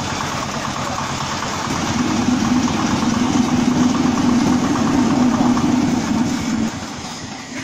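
Small diesel engine of a movable concrete hollow block machine running. About two seconds in it grows louder with a strong steady hum, then drops back near the end.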